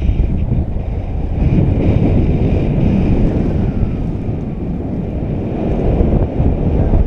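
Loud, steady wind noise buffeting a GoPro's microphone as a paraglider flies through the air.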